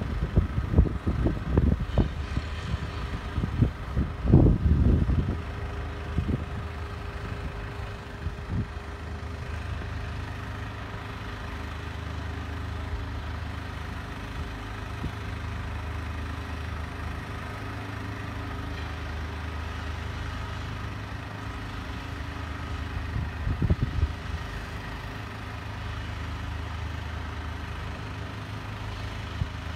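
Diesel engines of construction plant, such as tracked excavators, running steadily with a low drone. Gusts of wind buffet the microphone through the first several seconds and again briefly about three-quarters of the way through.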